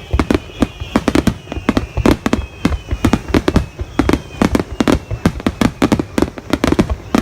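Fireworks going off in quick succession, several sharp bangs and pops a second, with high whistling tones sliding slowly down in pitch through them.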